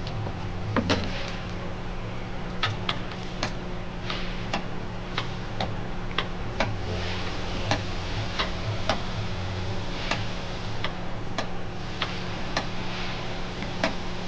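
Ratchet wrench clicking, about two sharp clicks a second, as the engine's crankshaft is turned by hand to bring a piston up to top dead centre for a leakdown test. A steady low hum runs underneath.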